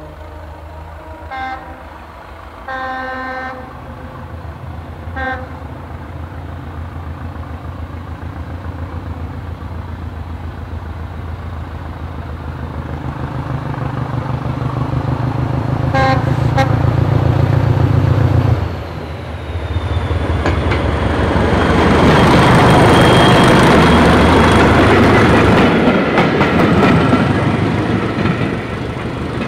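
Diesel locomotive sounding its horn in a few short toots, then two more about halfway. Its engine grows louder under power, dips briefly, and is loudest as it passes close by, with a high steady whine over the engine noise.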